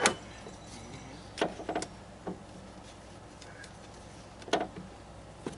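About half a dozen irregular sharp knocks and clicks from a car's electric cooling fan assembly being worked back into place in the engine bay.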